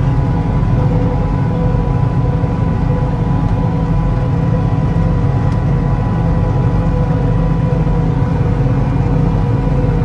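John Deere 9660 combine harvester driving on a paved road, heard from inside the cab: a steady, loud engine and drivetrain drone with a constant whine over it.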